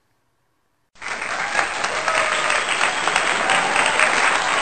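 Crowd applause that starts suddenly about a second in, after a moment of silence, and keeps going as a dense, even clapping.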